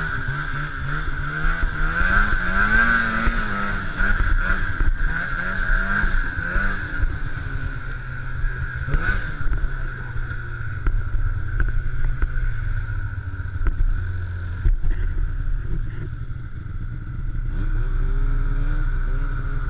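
Polaris Indy 600 snowmobile's two-stroke twin running under way, its pitch rising and falling with the throttle for the first several seconds, then holding steadier and lower.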